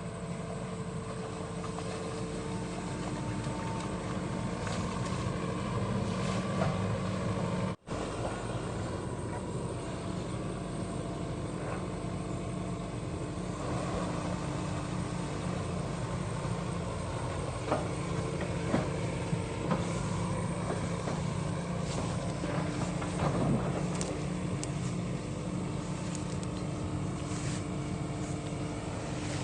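Sany SY75 long-arm excavator's diesel engine running steadily, with a few sharp knocks a little after the middle. The sound cuts out for an instant about eight seconds in.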